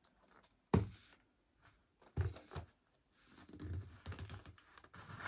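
Cardboard box being handled on a desk. It knocks against the surface twice, about a second in and just after two seconds, then scrapes and rustles in a quick run of strokes as the printed outer sleeve is worked along the inner box.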